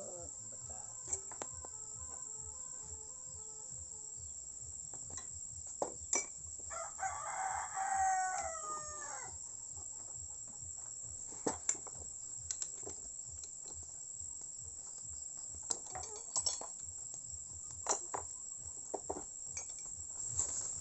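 A rooster crows once, a call of about two seconds starting some seven seconds in, over a steady high chirring of crickets. Scattered sharp clicks and taps of metal tools working at a motorcycle fork tube come and go.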